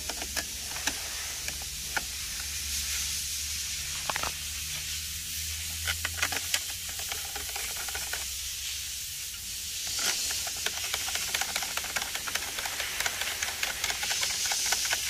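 Small plastic clicks and taps as a new 30 amp fusible link is pressed and worked into place in a car's under-hood fuse box, coming more often in the last few seconds, over a steady hiss and faint low hum.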